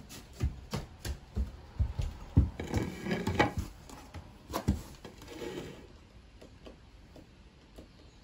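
Bare feet thudding on wooden deck boards, a string of irregular soft knocks, with a plate set down on the boards about three seconds in; after about five seconds only a few faint ticks remain.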